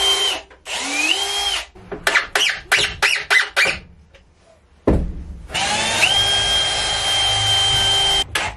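Cordless drill driving screws into a wooden roost frame. Two short runs spin up to a steady whine, then comes a string of quick trigger bursts and a short pause, and a longer run of about two and a half seconds follows.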